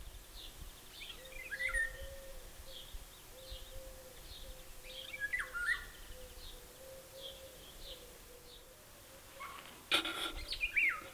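Birdsong: Eurasian golden oriole giving a few short, fluty whistled phrases that fall in pitch, over a run of high chirps repeating about one and a half times a second and a faint steady hum. About ten seconds in, a louder, harsher sound comes along with the last whistled phrase.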